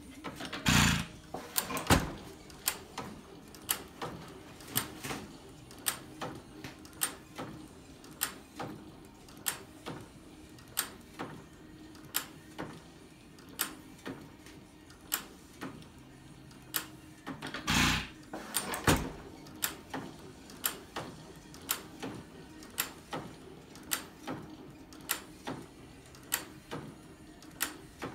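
6 hp Field Brundage sideshaft hit-and-miss engine running, coasting with a steady tick about one and a half times a second. It fires with a pair of loud bangs about a second in, and another pair about seventeen seconds later, the long gaps between firings typical of a hit-and-miss engine running light.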